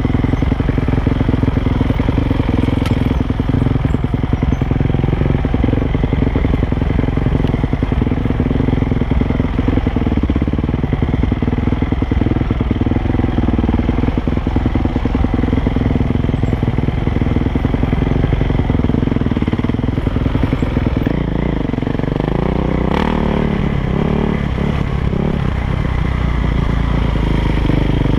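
KTM 450 SX dirt bike's four-stroke single-cylinder engine running hard along a trail, heard close up from the rider's helmet, its pitch swinging up and down with the throttle in the later part. A sharp knock comes about three-quarters of the way in.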